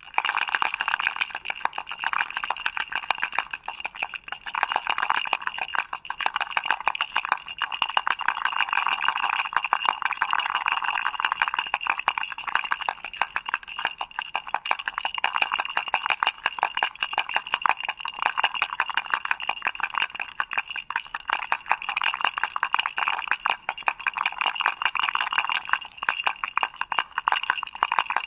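Doraemon toy rattle shaken continuously, a dense fast rattle with no pauses.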